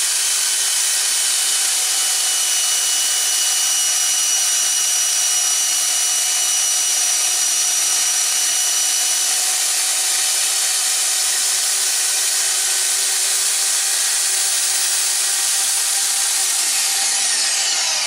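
2x72 belt grinder running with a titanium knife handle and backspacer pressed against the belt, a steady grinding hiss as the backspacer is trimmed. Near the end the grinder begins to spin down, its pitch falling.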